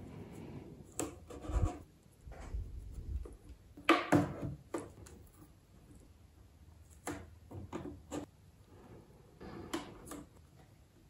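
Strips of masking tape being pulled, torn and pressed by hand onto a plastic model deck: soft rubbing and scratching with scattered light clicks, the loudest handling noise about four seconds in.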